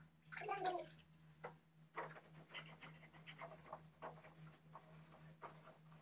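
Faint, irregular scrubbing and wet rubbing strokes from washing an indoor air conditioner's parts by hand with water and cleaner. There is a short voice just after the start and a low steady hum underneath.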